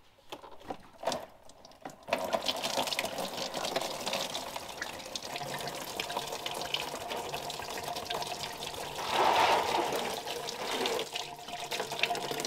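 Yellow engine coolant pouring out of a loosened lower hose on a John Deere 2038R compact tractor and splashing into a plastic tub. The flow starts about two seconds in after a few light clicks and swells louder about nine seconds in.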